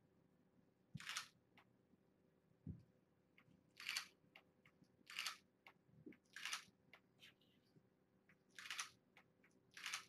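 Camera shutter firing six times at uneven intervals, each a short sharp snap, with a few faint ticks in between.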